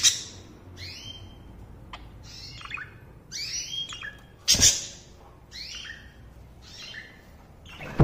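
Caged budgerigar giving short chirping calls, roughly one a second. There is a loud thump about four and a half seconds in.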